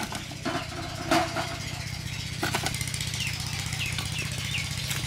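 A small engine running steadily with a fast, even low throb. A few short bird chirps come about three to four and a half seconds in.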